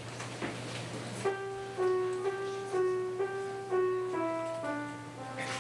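Piano playing a simple melody one note at a time, starting about a second in, at about two notes a second.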